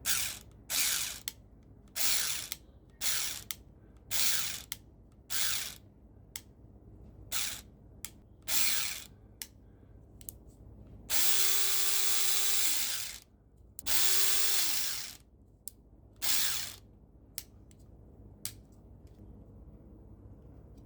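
Electric airsoft gun's motor and gearbox cycling in bursts: a run of short bursts, then two longer full-auto bursts of about two seconds each in which the motor whine spins up, holds and winds down, then a few more short bursts.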